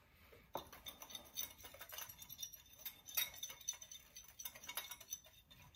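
Faint, irregular ticking and clinking of a whisk against a bowl as dry spices are mixed into a rub.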